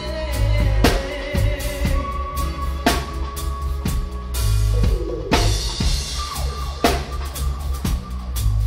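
Live reggae band playing, with the drum kit close and loud: heavy bass and a sharp snare crack about every two seconds under long held notes.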